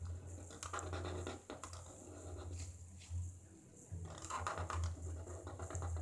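Sharpie marker drawing on paper: scratchy strokes coming in bursts, the longest about a second in and again around four seconds in, over a steady low hum.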